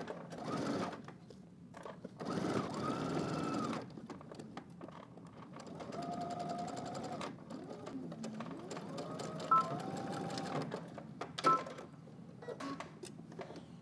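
Electric domestic sewing machine stitching through layers of denim in several short runs, its motor whine rising and falling in pitch as it speeds up and slows between stops. A few sharp clicks come near the end.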